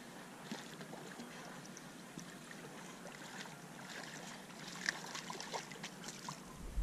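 Faint splashing and scattered ticks as a small hooked walleye thrashes at the surface while being reeled in, the splashes busier in the last two seconds.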